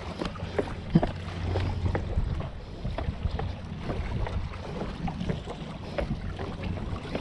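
Wind buffeting the microphone with a low rumble, over scattered small clicks and knocks of someone clambering over breakwater boulders; the sharpest knock comes about a second in.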